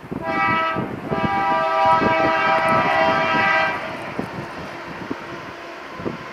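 Diesel freight locomotive's air horn sounding a short blast and then a long one of about two and a half seconds, over a low rumble of wind and train.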